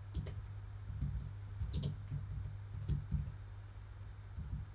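Computer keyboard keystrokes as code is typed: a run of light, irregular key clicks with short pauses between them. A steady low hum sits underneath.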